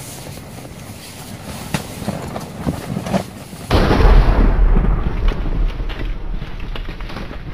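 Scattered clicks and rustles, then about three and a half seconds in a sudden deep boom that dies away slowly over the next few seconds: a cinematic impact sound effect for a channel logo reveal.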